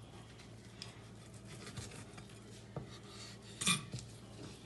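Kitchen knife scraping and tapping on a wooden cutting board while a raw muksun fillet is trimmed and cleaned: a few short scrapes, the loudest about three and a half seconds in.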